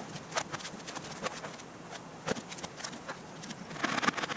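Thin aluminum sheet panel being handled, giving irregular light taps and clicks as it flexes and knocks. About four seconds in there is a louder flurry of rattling as the panel goes between the wheels of an English wheel.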